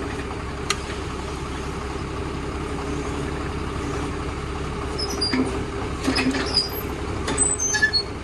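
A heavy machine's engine running steadily while it lifts an engine out of a car, with sharp metal clinks and squeaks in the second half as the engine shifts and comes free.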